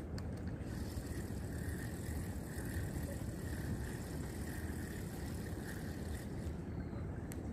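A steady low engine hum, even throughout, with a faint click near the start and another near the end.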